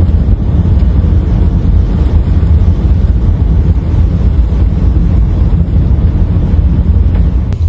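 A loud, steady low rumbling roar with no clear pitch, which cuts to a different sound abruptly just before the end.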